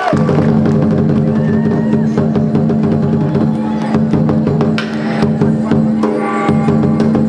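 Live performance music: knocking percussion over a steady, held low note.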